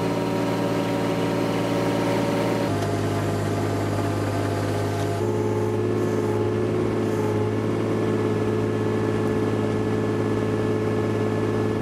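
Mini excavator's diesel engine running steadily while the machine hoists a stone block on a strap, its hum shifting abruptly in pitch twice.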